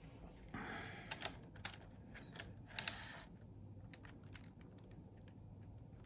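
Light rustling and small sharp plastic clicks from N-gauge model train cars being handled and pushed together on the track, with the loudest clicks about a second in and just under three seconds in.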